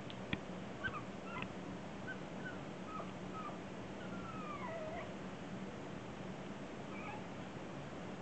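Coton de Tulear puppies whimpering: a string of short, high squeaky cries over the first few seconds, with one longer falling whine near the middle. A sharp tap comes just after the start.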